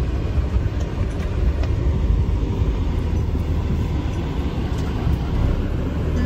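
A van driving: a steady low rumble of engine and road noise.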